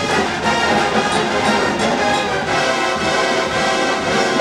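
Drum and bugle corps brass line playing loud, sustained chords.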